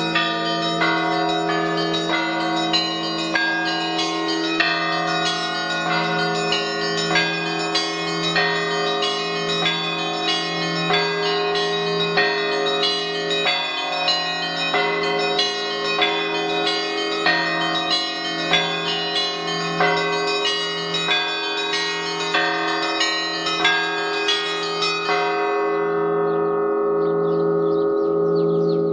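Orthodox church bells on an open wooden frame rung by hand with ropes: a quick, rhythmic pattern of strikes on several smaller bells over the deep hum of a large bell. About 25 seconds in the striking of the higher bells stops and the lower bells ring on.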